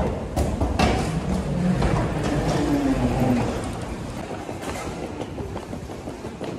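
Wheeled suitcases rolling across a tiled floor: a steady rumble with clicks as the wheels cross the tile joints, louder in the first half.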